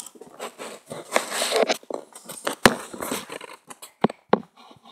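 Rustling and shuffling handling noise from people moving about close to the microphone, with a few sharp clicks and knocks; it dies down near the end.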